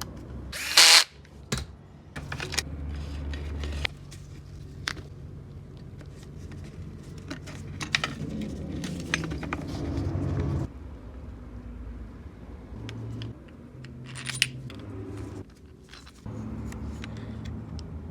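Scattered metallic clinks, rattles and knocks of small parts and hand tools being handled, with a louder rattle about a second in. A low hum runs underneath.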